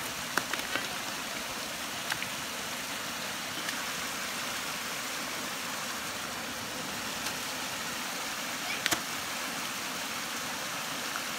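Creek water pouring over a low rock ledge in a small cascade: a steady rushing, with a few sharp clicks, the loudest near the end.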